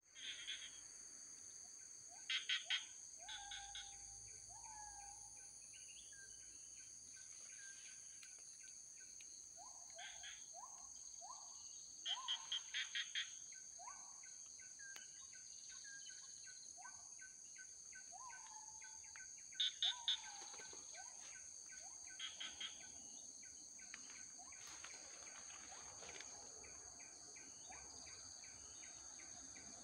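Steady high-pitched insect drone with birds calling over it: short whistled notes sliding up and down, and three bursts of quick, sharp repeated notes about two, twelve and twenty seconds in, which are the loudest sounds.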